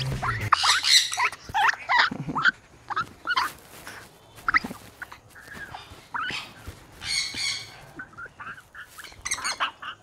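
Parrots squawking and calling: a string of short squawks and whistles that rise and fall in pitch, with harsher, louder squawks about a second in, about seven seconds in and near the end.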